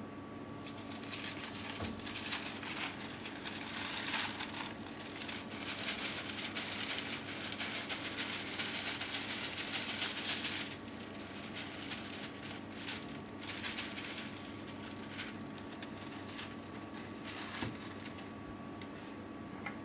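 Cake flour pouring from a container into a stainless-steel mixing bowl: a dense rustling hiss with fine crackles that stops abruptly about halfway through. After it come a few scattered light taps and clicks, over a faint steady hum.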